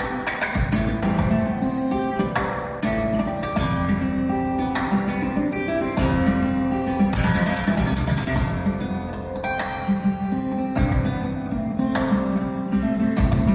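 Acoustic guitar music with a run of plucked and strummed notes, played back through KEF LS50 Meta bookshelf loudspeakers and picked up by a phone microphone in the room.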